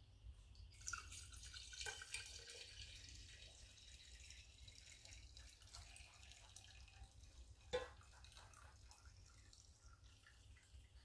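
Faint sound of liquid pouring from a stainless steel saucepan into a glass jar, a thin stream splashing and dripping, with one light knock about three-quarters through.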